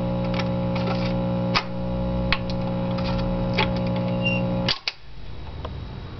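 Admiral Y949 tube record player after the music has ended: a steady amplifier hum with sharp clicks from the stylus every second or so as the 78 rpm record spins out. About four and a half seconds in, the hum cuts off suddenly, leaving fainter mechanical ticks.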